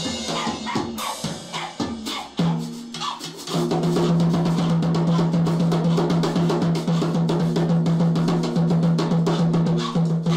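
A drum kit played fast, with quick snare and bass drum beats and cymbal crashes, the crash cymbal also being struck by a dog with a drumstick in its mouth. A steady low tone sounds under the drumming from a few seconds in.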